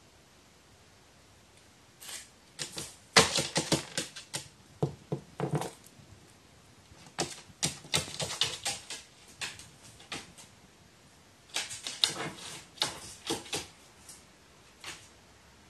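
A pet crow pecking and rattling at small hard objects: bursts of quick, sharp taps and clicks, three runs of several seconds each with a single tap near the end.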